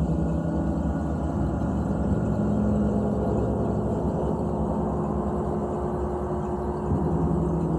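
Large gongs played with felt mallets: a continuous low drone of many overlapping tones that hangs on without a break, with a fresh tone coming in near the end.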